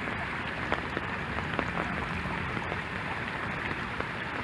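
Small backyard brook babbling: a steady rush of water running over stones, with faint scattered ticks.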